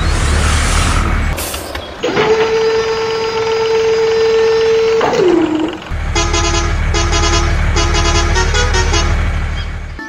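Vehicle horn over engine rumble: one long horn blast of about three seconds that sags in pitch as it ends, then a run of short toots.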